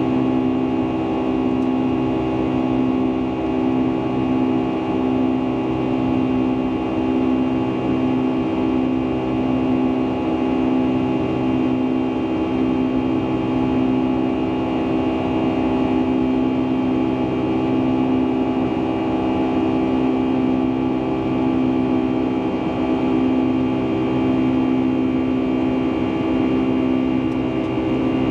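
Boeing 757-200's Pratt & Whitney PW2037 turbofans heard from inside the passenger cabin: a steady drone with several held humming tones and an even rush of air noise underneath.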